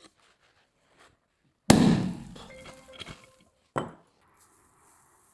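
Pressure popcorn machine opened with one loud bang as a pot of millet pops, the blast dying away over about a second and a half with some ringing. A shorter, sharper knock follows about two seconds later.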